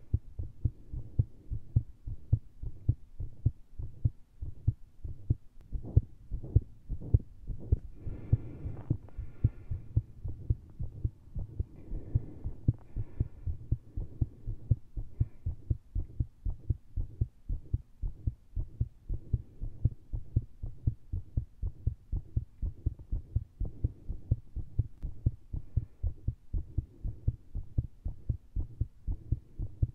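A person's own heartbeat heard through a stethoscope with a lavalier microphone: fast and very irregular, the heart racing after a large dose of caffeine and a standing push-and-vacuum manoeuvre.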